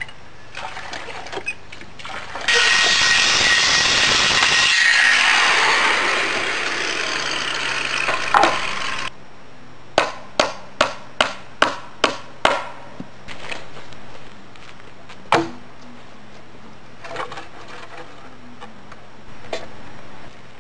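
A hammer driving nails into wooden boards: about seven quick strikes, then a single strike a few seconds later. Before the hammering comes a loud, steady rushing noise lasting about six seconds that cuts off abruptly.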